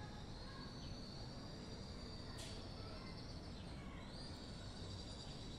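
Faint outdoor ambient noise with a steady high-pitched whine running through it, and a single sharp click about two and a half seconds in.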